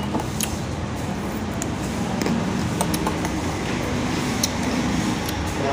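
A metal spoon stirring thick lassi in a tall glass, clinking lightly against the glass about six times over a steady background hum.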